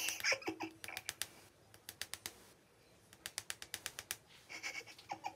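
Rapid runs of light, sharp clicks and taps, like typing: handling noise from a hand touching the hair and wired earbud near the microphone. The clicks come in two bursts with a short lull between them.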